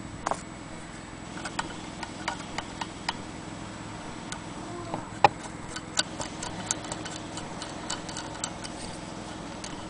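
Irregular light clicks and ticks from a Willcox & Gibbs hand-crank sewing machine's hand wheel and mechanism as it is worked by hand, the loudest click about five seconds in, over a steady low hum.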